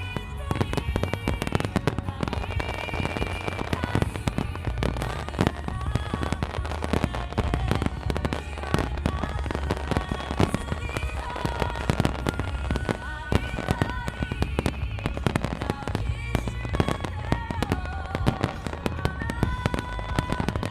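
Fireworks going off in a rapid, dense barrage of bangs and crackles, with music playing underneath.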